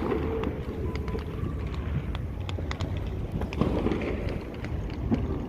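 Distant fireworks popping and crackling in scattered sharp reports over a steady low rumble.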